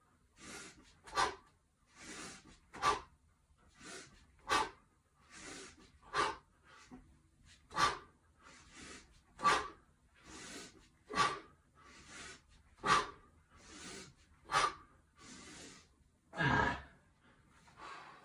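A man's rhythmic breathing through a set of one-handed kettlebell swings: a short, sharp power breath out at the top of each swing, about every second and a half, nine of them, each followed by a softer breath in on the backswing. Near the end comes one longer, heavier breath out as the set finishes.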